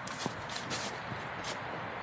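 A hiker's footsteps on a trail, about two steps a second, over a steady rustle.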